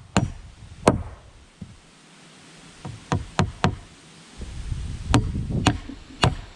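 Steel claw hammer driving nails into 2x4 wall framing lumber: an uneven series of about eight sharp blows, with a quick run of three about three seconds in.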